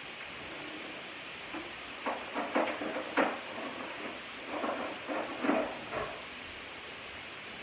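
Metal utensils clinking and clattering as a kitchen drawer is rummaged for a knife, a run of sharp clinks between about two and six seconds in, over a steady hiss of chicken frying in a skillet.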